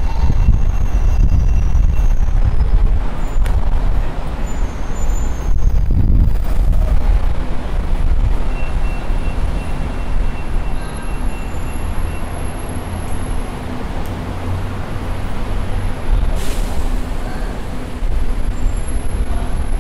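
Street traffic: a steady, loud rumble of passing vehicles.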